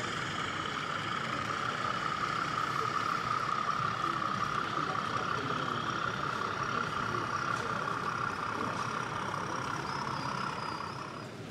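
Sound-fitted OO gauge model diesel locomotive running steadily with an even engine hum as it hauls a rake of loaded coal hopper wagons. The sound fades out shortly before the end.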